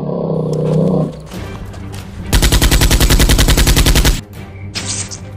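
A creature roar for a computer-animated Tyrannosaurus fades out in the first second. About two seconds in comes a dubbed automatic-gunfire sound effect standing in for a Nerf blaster: one rapid burst of about two seconds, roughly a dozen shots a second, the loudest sound.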